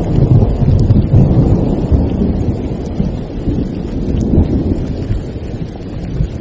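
Thunder rumbling low and long over steady rain, the rumble slowly dying away toward the end.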